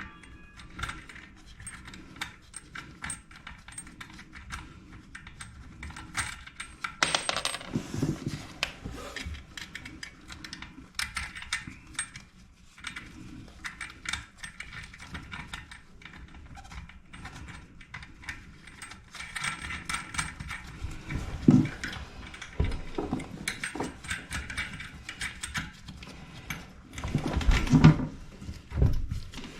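Small metal hardware clicking and clinking as nuts and washers are hand-tightened onto a toilet's tank-to-bowl bolts, with a few louder knocks against the porcelain.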